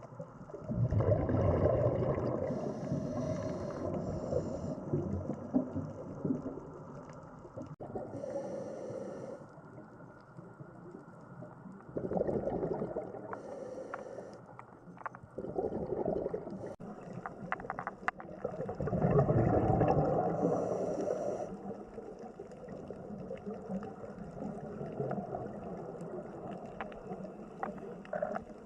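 Muffled rushing and gurgling of water, swelling and fading irregularly, with a few small clicks in between.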